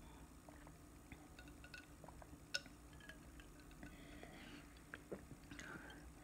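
Faint sipping and swallowing of a sparkling drink from a glass, with scattered small clicks and one sharper click about two and a half seconds in.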